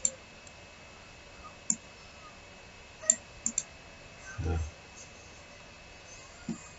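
Computer mouse clicking: a few separate sharp clicks, then a quick double click about three and a half seconds in.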